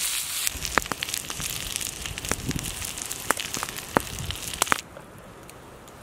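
Sausages, potatoes and asparagus frying in a cast iron pan over a crackling campfire: a steady sizzle with scattered sharp pops. A little before the end the sizzle cuts off abruptly, leaving quieter crackles.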